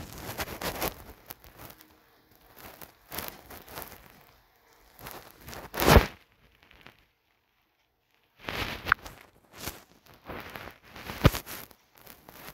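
Irregular bursts of rustling noise separated by short gaps, with a few sharp knocks: the loudest about halfway through and two more in the last third.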